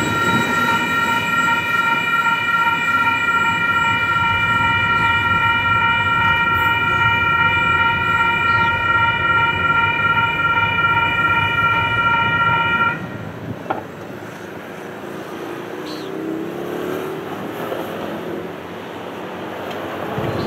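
Union Pacific locomotive's air horn sounding one long, steady blast over the rumble of a passing train, cutting off abruptly about 13 seconds in. A quieter rumble of the train continues after it.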